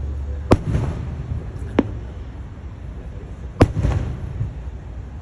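Fireworks going off: three sharp bangs, about half a second in, just under two seconds in and about three and a half seconds in. The first and last are the loudest and each trails a short echo, over a steady low rumble.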